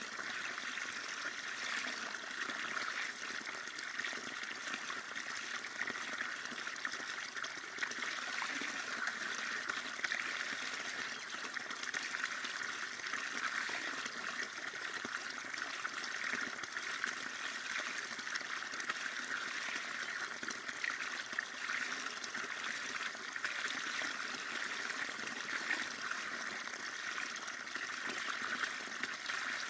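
Flowing water trickling and babbling steadily, with no break or change.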